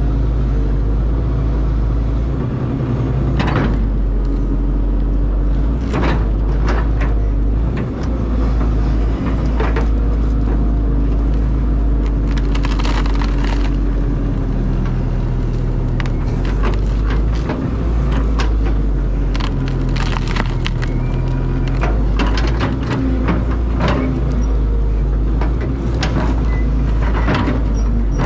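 Caterpillar excavator's diesel engine running steadily under work, with irregular sharp knocks, cracks and crunches of wood and dirt being broken and moved.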